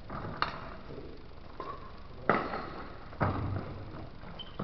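Three sharp smacks from a badminton rally, rackets striking the shuttlecock and shoes landing on the court, each echoing in a large hall. The loudest comes about two seconds in.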